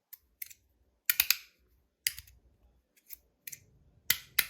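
Stainless steel and white Timascus Rapt fidget being worked in the hand, its metal parts giving sharp clicks, some single and some in quick pairs, at an uneven pace.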